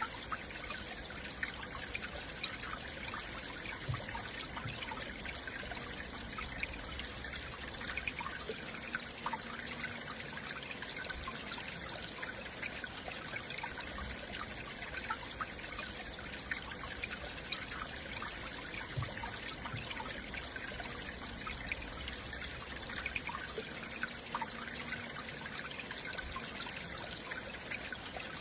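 Stream water flowing and trickling steadily, with many small splashes and gurgles.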